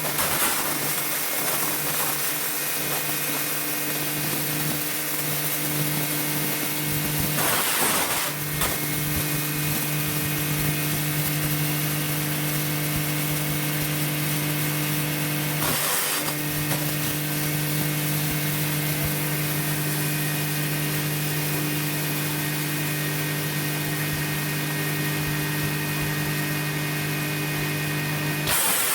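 A 15 HP sawdust-making machine running steadily, with a strong even hum over a broad noise. The sound is briefly disturbed three times, about a quarter of the way in, around halfway, and near the end.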